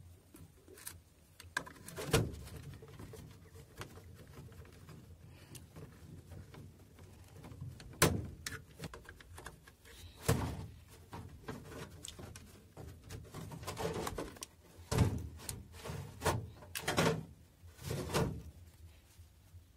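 Plastic Bluetooth speaker casing being handled and fitted back together: scattered clicks and knocks, coming more often in the second half.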